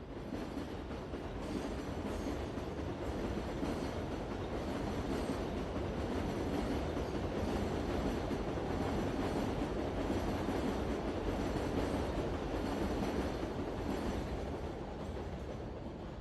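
Metro train running on its rails, a steady noise that builds through the middle and eases off near the end.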